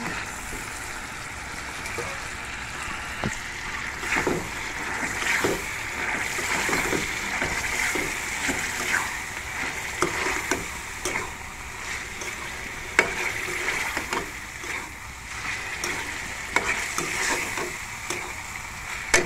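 Raw meat pieces frying in hot oil in a steel karahi, a steady sizzle, with a metal spatula scraping and clanking against the pan as the meat is stirred; a few sharper knocks of the spatula come in the second half.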